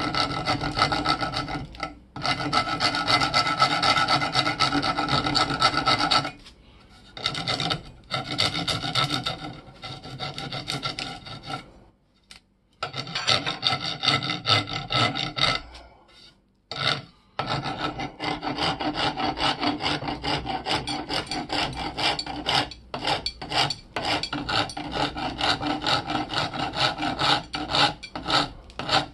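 Hand file rasping in quick back-and-forth strokes along the rusty haft of an antique hammer axe to clear the rust, with three short pauses. Toward the end the strokes come more slowly and separately.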